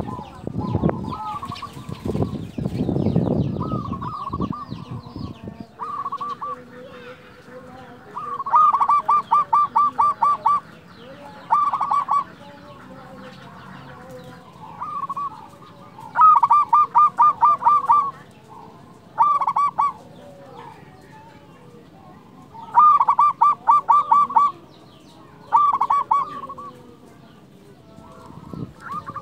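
Zebra dove (perkutut) singing its loud cooing song: about half a dozen bursts of rapid, evenly repeated notes, each burst a second or two long, with pauses between. A low rumble sounds in the first few seconds.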